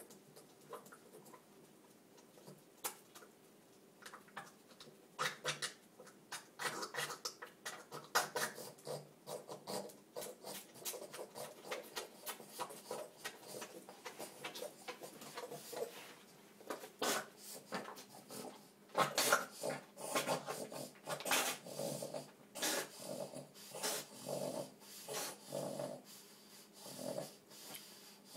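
Boston terrier in an idiopathic epileptic seizure, making irregular breathing and throat noises with many short clicks. The sounds start faint and grow louder and busier after about five seconds.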